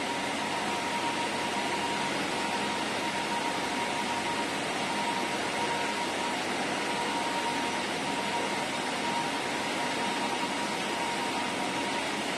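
Steady, even hiss like static, with a thin steady tone in the middle; it starts and stops abruptly, and no train, crowd or other distinct sounds stand out in it.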